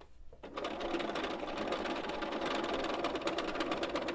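Bernina B 770 Quilters Edition sewing machine stitching steadily at speed on a short stitch length, with rapid, even needle strokes. It starts about half a second in.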